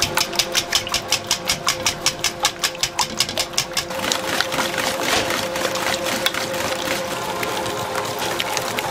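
Wire whisk beating raw eggs in a stainless steel bowl, clinking against the metal about six times a second. About four seconds in, the clinks give way to a faster, blurred swishing with scattered clicks as the beaten eggs are whisked on.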